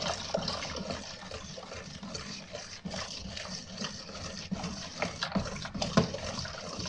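Liquid poured from a plastic measuring jug into a large plastic basin of diluted homemade liquid soap while a spoon stirs it: pouring and sloshing of the liquid, with occasional light clicks.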